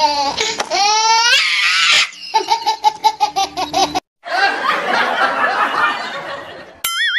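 Laughter sound effects: rapid, rhythmic laughing pulses and a stretch of sweeping, rising laugh sounds that cut off abruptly about four seconds in. Noisier laughter follows, and a short wobbling tone comes in near the end.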